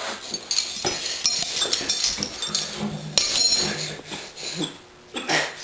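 Metal chain and padlock clinking and rattling as a key is worked in the lock: an irregular run of light metallic clicks and jingles.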